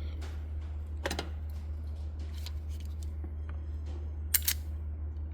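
A few light plastic clicks and taps from handling an RJ45 plug and Cat-5e wires while seating the conductors, the sharpest about four seconds in, over a steady low hum.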